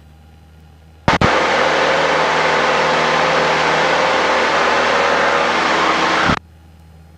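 Cessna 172 engine and cabin noise heard through the aircraft's headset audio: a faint steady drone, then about a second in a sudden loud rush of engine and wind noise. The rush holds steady and cuts off abruptly about five seconds later, like a microphone keyed open and released.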